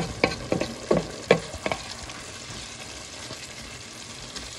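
Sweet potato leaves (matembele) frying with palm oil in a stainless steel pot, a steady sizzle. A wooden spatula knocks against the pot about five times in the first two seconds as the leaves are stirred.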